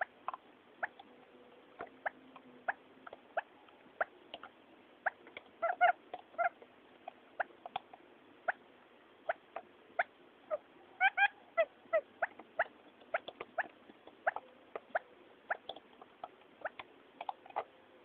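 Quail lure call, male and female quail calling: short, sharp chirps at irregular intervals, with quick runs of several calls close together about six and eleven seconds in.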